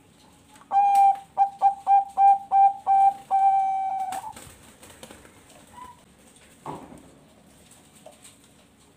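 Zebra dove (Bangkok perkutut) singing one full phrase: an opening coo, a run of about seven quick short coos, then one long held final coo that ends about four seconds in.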